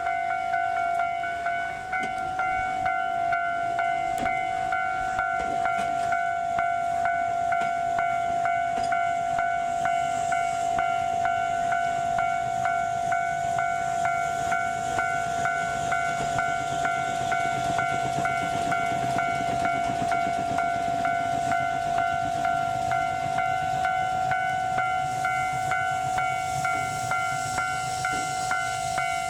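Railway level-crossing warning bell ringing in steady, rapidly repeated strokes, while an electric train runs past. The train's running noise swells in the second half.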